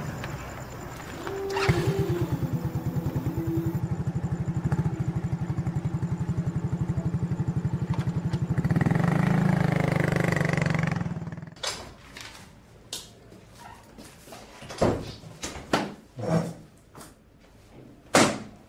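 Small motorcycle engine starting about two seconds in and idling with an even pulse, then revving as it pulls away. It cuts off suddenly past the middle, followed by a few scattered knocks.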